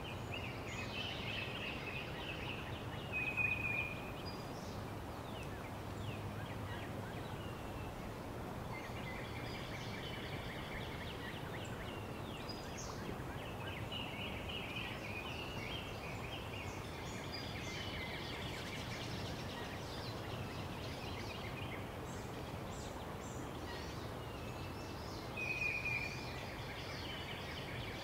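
Outdoor nature ambience: a steady background hiss with scattered bird calls and chirps, two of them louder, about three and a half seconds in and near the end.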